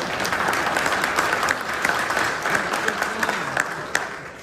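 Audience applauding, a dense patter of clapping that fades toward the end.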